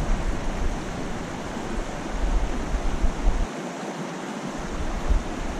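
Shallow, rocky mountain creek flowing, a steady rush of water, with wind buffeting the microphone in uneven gusts.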